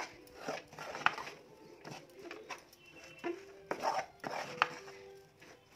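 A metal spoon stirring a thick jaggery-and-sesame mixture in a metal pan, scraping and knocking against the pan's sides and bottom in irregular clicks and scrapes.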